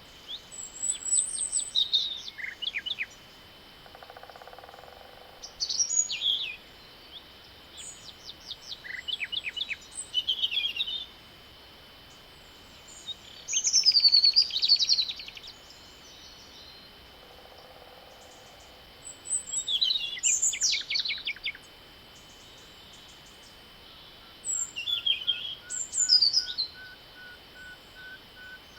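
Songbirds singing in spring woodland: short phrases of quick trills and whistled notes, about half a dozen, each a second or two long and a few seconds apart.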